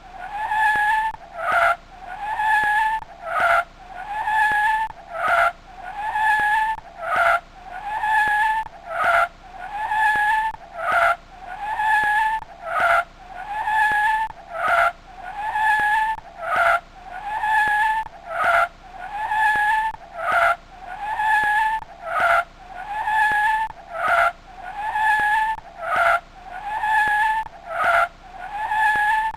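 Screeching sound effect played on a loop: a held, high squeal broken by a short noisy burst, repeating evenly about every second and three-quarters.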